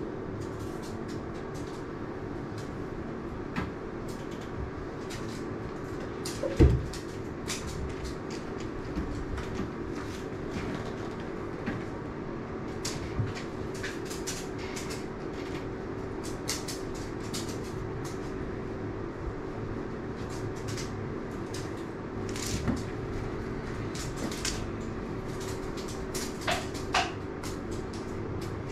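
A steady low room hum carries throughout, with scattered light clicks and taps. One louder thump comes about six and a half seconds in, and a couple of smaller knocks come near the end.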